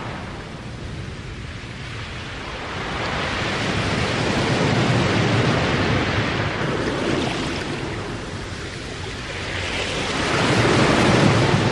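A loud, even rushing noise that swells and eases twice, with slow surges like surf or wind.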